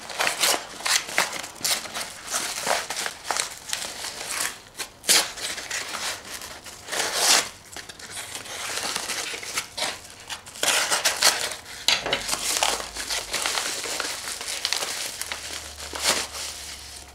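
Brown paper mailing envelope crinkling and rustling as it is handled, slit open with a knife and torn, in an irregular run of crackles and rips.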